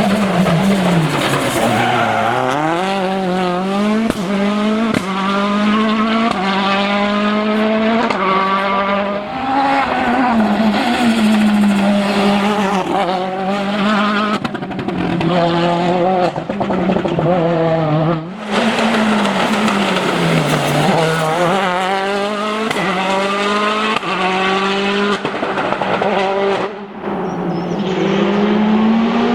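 Citroën DS3 WRC rally car's turbocharged 1.6-litre four-cylinder engine revving hard at full throttle, its pitch climbing through each gear and dropping at each shift, over and over. The sound cuts out briefly twice, about two-thirds of the way in and again near the end.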